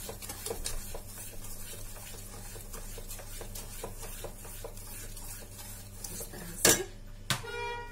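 Steel slotted spoon stirring thick atta halwa in a non-stick kadhai: soft, irregular scraping and small clicks of the spoon against the pan, with one sharp clank near the end.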